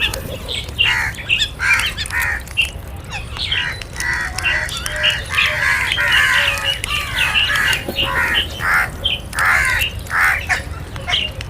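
Several crows cawing repeatedly, their short harsh calls overlapping one another with hardly a pause.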